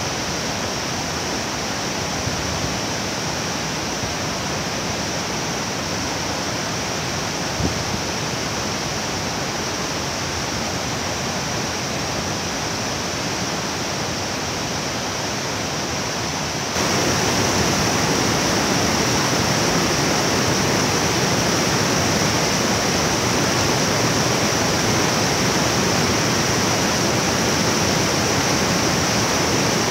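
The Cascade de l'Éventail, a tall tiered waterfall on the Hérisson, pouring in heavy flow: a steady rush of falling water. A little over halfway through it jumps louder and brighter, with the water tumbling over the rapids of the stream bed below the fall.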